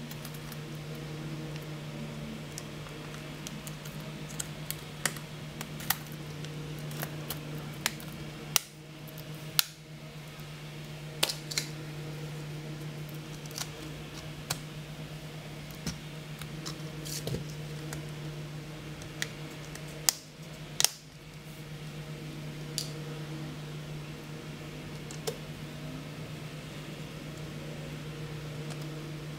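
Scattered sharp plastic clicks and taps as a Toshiba NB200-series netbook keyboard is fitted and pressed into place and the netbook is handled, over a steady low hum.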